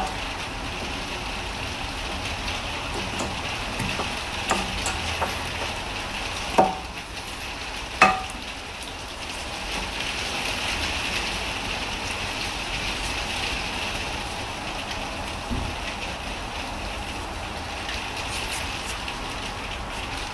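Light metal clicks and knocks of new front brake pads being pushed into place in a caliper bracket, with two sharper knocks about six and a half and eight seconds in, over a steady hiss.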